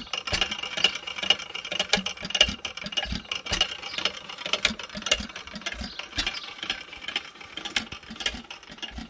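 1898 A&S Barker hot tube gas engine running, a busy clatter of clicks and ticks with low thumps at uneven intervals.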